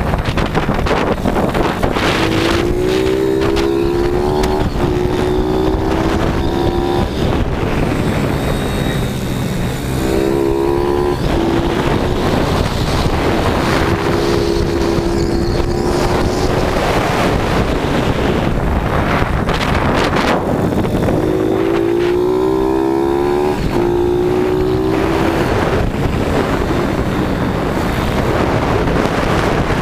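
YCF SP2 160 pit bike's single-cylinder four-stroke engine under hard acceleration, its note rising and breaking off at each upshift several times, under heavy wind noise on the onboard microphone.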